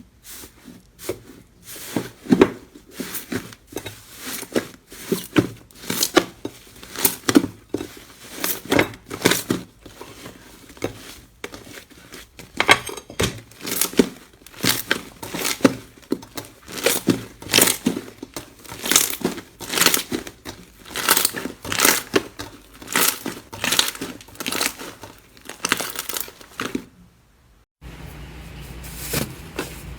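Slime being squeezed and pressed by hand, giving crinkly, crackling pops in a quick series of squishes, about one or two a second. Near the end it cuts to a quieter take with a steady low hum under it.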